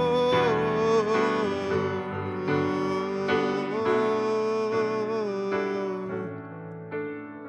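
Grand piano playing slow chords under a held, wordless sung note that glides between pitches. The voice stops about six seconds in, leaving the piano alone and growing quieter.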